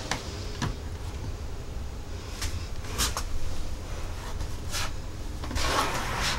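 Work handling noises: a few light taps and a brief rustle near the end, over a steady low rumble.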